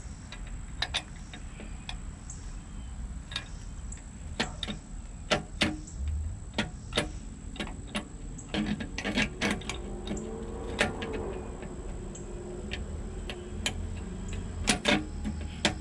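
Irregular sharp metallic clicks and knocks of the backrest's mounting bracket and hardware being handled and fitted, with a busier run of clicks in the middle and a couple near the end.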